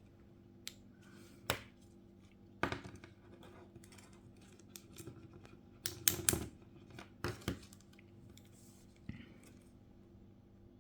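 Hand tools clicking and scraping on an iPhone 7 screen while picking off a leftover piece of glass: a handful of separate sharp clicks and short scrapes, the loudest about six seconds in, over a faint steady hum.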